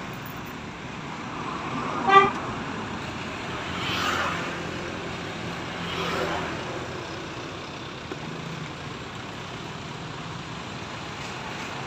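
Road traffic passing close by, with a short vehicle horn toot about two seconds in, and vehicles swelling past around four and six seconds.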